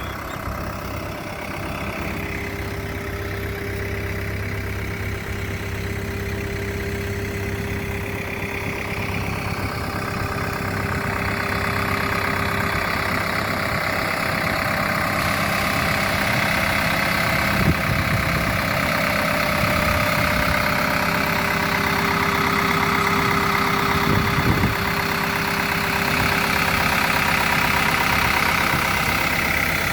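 JCB 3DX backhoe loader's diesel engine running steadily, slowly growing louder, with two brief knocks in the second half.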